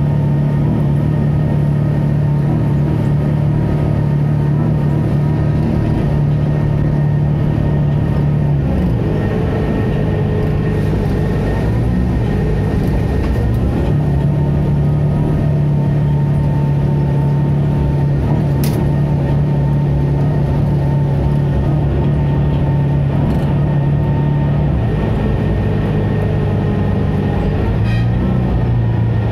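Zhongtong LCK6180GC articulated bus's Doosan GL11K 11.1-litre inline-six CNG engine running with a steady low drone. Its note breaks and changes about nine seconds in, again around twelve to fourteen seconds, and near the end. A single sharp click comes a little past halfway.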